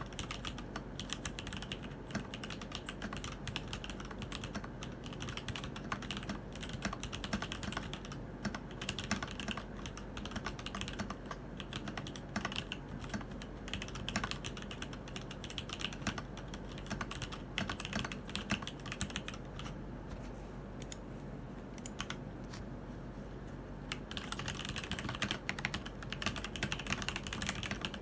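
Typing on a Keydous NJ80 mechanical keyboard fitted with TTC ACE switches: a steady stream of rapid keystroke clicks. The clicks thin out briefly past the middle, then come faster and denser near the end.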